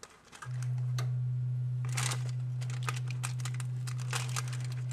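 Parchment paper crinkling and a fork scraping and tearing through a soft seitan loaf as it is pulled apart, in scattered small crackles and clicks. A steady low hum starts suddenly about half a second in and carries on under them.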